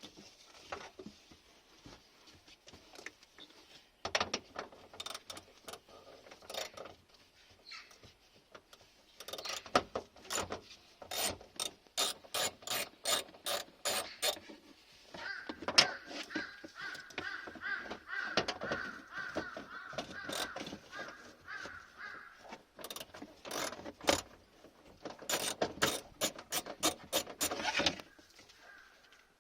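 Runs of quick ratcheting clicks, about three a second, from a hand ratchet turning fasteners while the brake light is taken apart, with a thin squeaky tone for several seconds in the middle.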